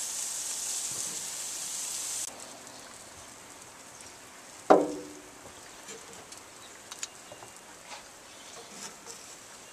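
Butter and fat sizzling on a hot grill, a high hiss that cuts off sharply about two seconds in. Later comes one sharp knock with a brief ring, then a few faint clicks.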